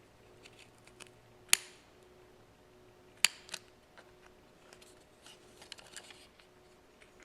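A small metal tool clicking and scraping against the thin metal corner tabs of a Galaxy Note 3's camera lens frame as they are pried up: two sharp clicks, about a second and a half in and again near the middle, among lighter scattered ticks.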